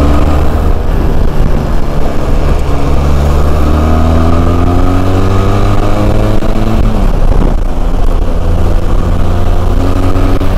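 Benelli TRK 502's parallel-twin engine under way, its pitch climbing steadily as the bike accelerates. It drops sharply about seven seconds in, then climbs again.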